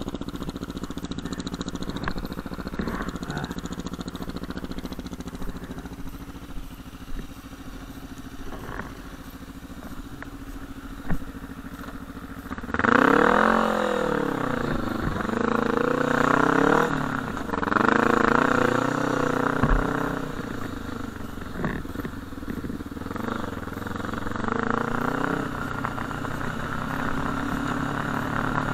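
Sport quad (ATV) engine running low and steady, then, about twelve seconds in, revved hard, its pitch sweeping up and down several times with the throttle before settling into a steadier run.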